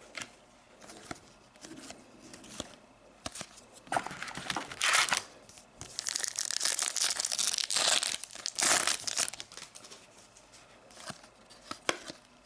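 Foil wrapper of an Upper Deck hockey card pack being torn open and crinkled, loudest in the middle few seconds, with softer rustling of cards being handled before and after.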